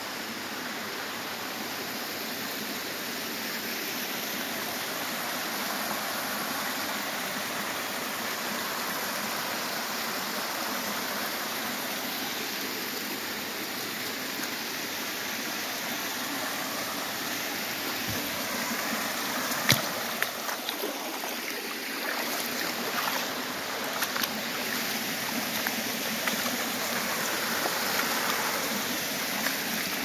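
Stream water running steadily over rocks, with a few sharp knocks and clicks in the second half.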